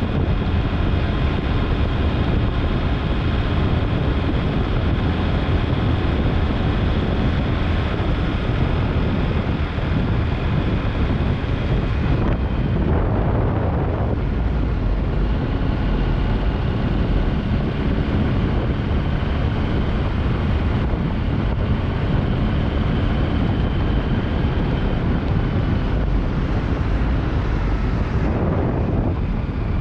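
Steady vehicle engine and road noise, heaviest in the low end, with wind on the microphone.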